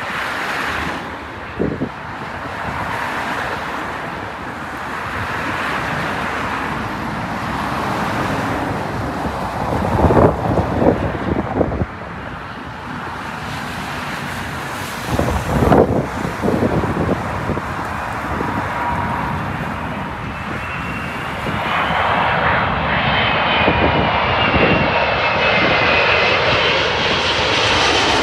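Four-engine jet airliner's engines, a loud steady rush that builds toward the end. A few thumps come around the middle, and a whining tone that wavers in pitch joins in over the last several seconds.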